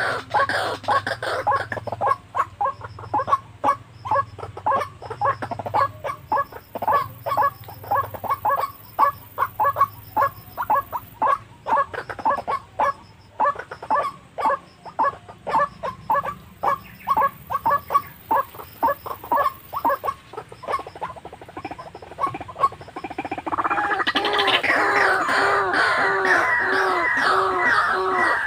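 White-breasted waterhen calls: a fast run of short clucking notes, about three a second, then near the end a louder, fuller repeated call at about two a second.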